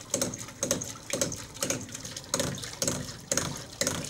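Homemade non-electric water pump working: its brass valve clacks about twice a second, with water spurting and splashing at each stroke.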